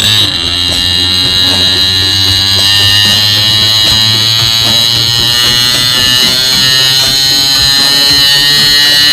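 Yamaha two-stroke motorcycle engine running, a loud, steady engine note held without changing.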